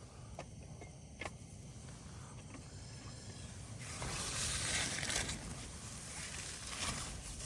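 Lidded pot of dumplings on a camping gas stove coming to the boil, a steady hiss that swells about four seconds in. Two light clicks come shortly before it.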